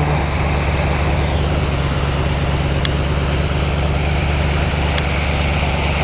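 Whitewater rushing down a rocky waterfall: a steady, unbroken rush of noise over a low steady hum.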